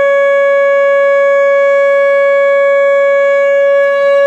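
Outdoor tornado warning siren sounding a loud, steady tone held on one pitch during a siren test.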